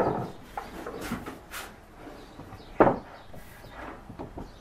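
Solid walnut panels handled on a wooden workbench: a wooden knock at the start and a louder one just before three seconds in, with lighter taps and a couple of brief scrapes between.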